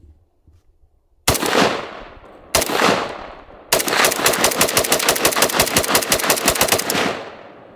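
AK-47 rifle (7.62×39mm) firing: two single shots about a second and a quarter apart, each with a ringing echo tail, then a rapid string of shots lasting about three seconds.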